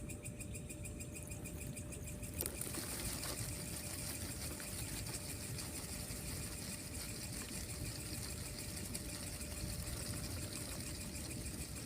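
Night forest ambience: insects chirping in a fast, even pulse. A steady hiss joins about two and a half seconds in.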